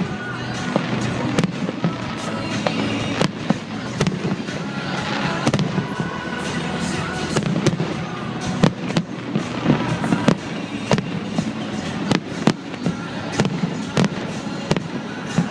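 Fireworks display: aerial shells bursting in irregular sharp bangs, some coming in quick clusters, over music playing.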